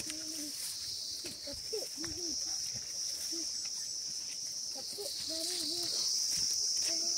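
Steady high-pitched drone of an insect chorus, a continuous trilling that steps slightly higher and louder about six seconds in.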